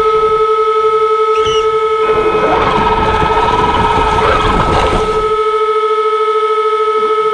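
Traxxas X-Maxx RC truck's electric drivetrain heard from its on-board camera: a steady high whine throughout. From about two to five seconds in, a wavering motor whine and a low rumble rise as the truck drives forward pushing snow, then drop away, leaving only the steady whine once the truck stops against the snowbank.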